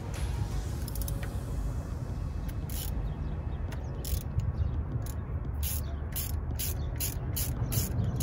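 Hand socket ratchet on an extension backing out a 10 mm bolt: short bursts of pawl clicking, about two to three strokes a second, starting a couple of seconds in, over a steady low rumble.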